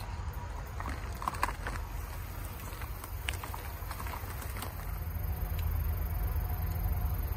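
Pond-side outdoor ambience: a steady low rumble with scattered soft ticks and clicks, then a faint steady insect tone after about five seconds.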